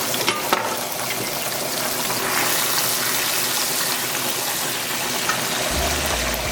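A pot of potatoes at a hard rolling boil, bubbling steadily, with garlic butter sizzling in a skillet of sauce. A couple of sharp clicks come about half a second in.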